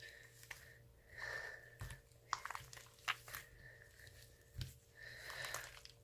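Slime being handled and squeezed: scattered crackling clicks and pops with a couple of brief squelchy swells.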